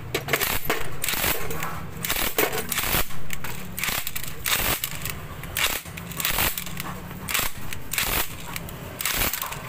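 Socket ratchet clicking in quick, uneven runs of sharp metal clicks as it is worked back and forth on a seized exhaust-port bolt of a Suzuki Raider 150 cylinder head.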